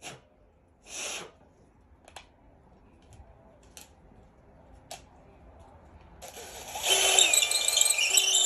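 A few light handling clicks, then about six seconds in a power drill starts and runs loudly, turning a 10 mm tap to cut a thread into a block of firewood. Its whine climbs in pitch near the end.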